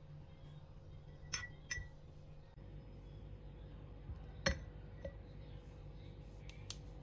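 Light clinks of kitchen tongs and peeled boiled eggs against a glass jar as the eggs are set inside: two quick clinks about a second and a half in, a louder knock about four and a half seconds in with a smaller one just after, then a few faint ticks near the end.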